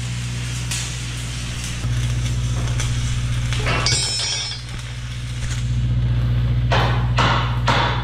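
Arc welding on the steel of an excavator's stick and hydraulic thumb mount: the arc crackles and hisses, in a few short runs near the end, over a steady low hum.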